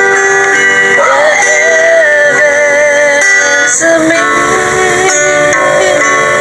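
Background music: a song with a singing voice over plucked string notes.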